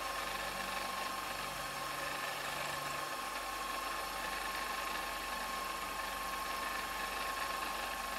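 CNC milling machine spindle running steadily while its end mill cuts a white plastic workpiece turning in the fourth-axis chuck, with a steady whine over even cutting hiss.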